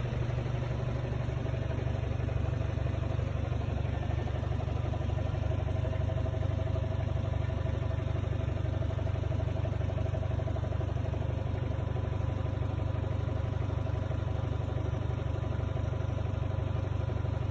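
Car engine idling steadily, heard from inside the car, a constant low hum with no change in speed.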